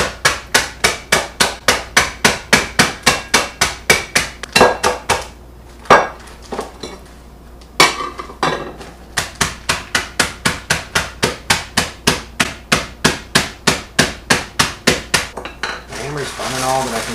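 Wooden meat mallet pounding a plastic bag of Flamin' Hot Funyuns, crushing the snacks into crumbs for a fish batter. The blows come fast and even, about three a second, with a few slower single blows around the middle, and stop near the end.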